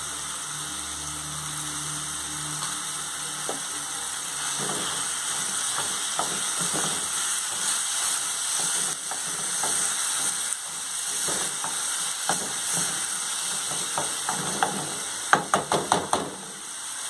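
Ground beef sizzling as it fries in a pot over onion, stirred and scraped with a spatula. Near the end, a quick run of five or six sharp knocks.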